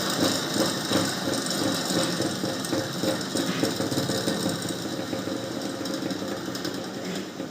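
3D-printed dual-rotor axial flux motor spinning with a steady rattling whir that gradually gets quieter, running down after being switched off.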